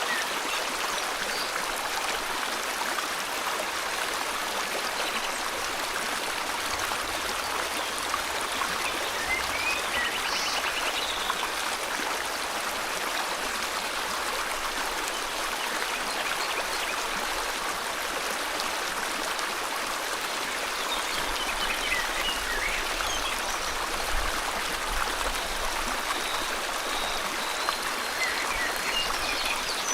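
River water flowing steadily, with a few faint bird chirps and short trills now and then.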